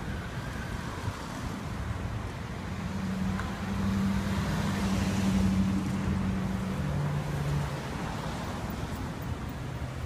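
City street traffic: cars driving past close by, loudest about four to six seconds in, over a low steady engine hum.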